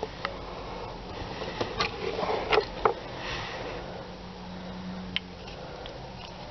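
Small clicks and rustling from items being handled at an open car glovebox, including a paper key tag being pulled out, over a low steady hum.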